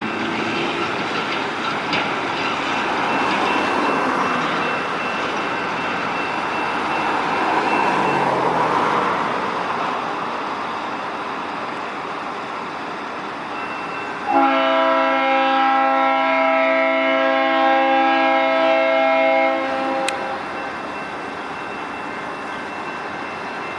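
Train rumbling past on the rails. About fourteen seconds in, the former Conrail diesel locomotive's Leslie RS5T five-chime air horn sounds one long chord blast of about five seconds, the loudest sound, then cuts off and the train noise carries on.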